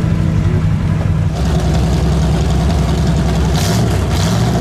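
Big off-road truck engine running loud and steady, its pitch rising slightly near the end, with two brief hissing bursts over it.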